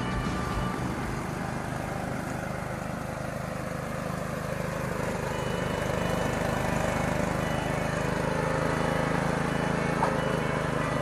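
OREC RMJ800 ride-on mower's engine running steadily, growing a little louder about halfway through.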